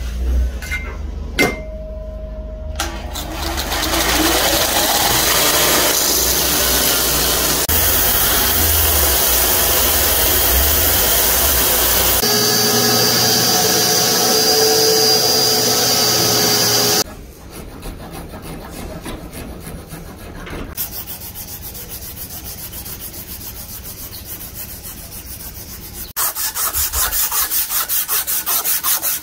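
A few sharp clicks, then an electric belt sander grinding a wooden knife handle flush with its steel tang for about a dozen seconds, cutting off suddenly. After that comes quieter rhythmic rubbing, and near the end fast, louder back-and-forth strokes of an abrasive strip sanding the wooden handle.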